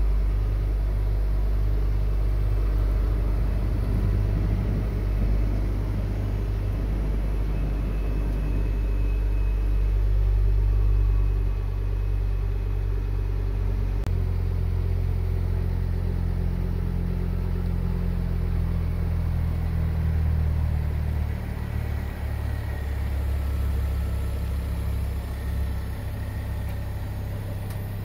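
Ford Focus ST Mk2's turbocharged five-cylinder engine idling with a steady low rumble; its pitch shifts slightly about halfway through.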